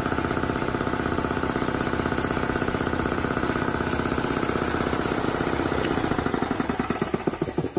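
Electric piston air compressor running with a rapid, steady pounding beat. About six seconds in it is switched off and the pump slows, its beats spreading out and getting quieter as it coasts down.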